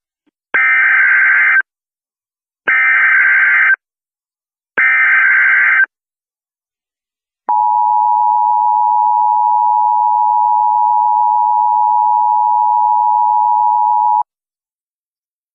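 Emergency Alert System opening: three one-second bursts of warbling SAME header data tones, then the two-tone attention signal, a steady dual-pitch tone held for about seven seconds that cuts off suddenly.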